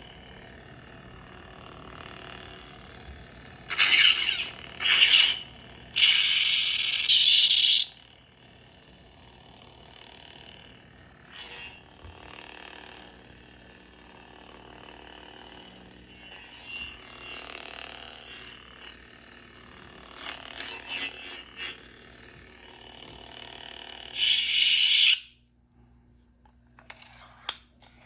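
Lightsaber sound board (CFX) playing through a small 28 mm speaker: a steady blade hum, broken by several short, loud effects about 4 and 5 seconds in and a longer one from about 6 to 8 seconds. A last loud effect comes near the end, then the hum stops as the blade shuts off.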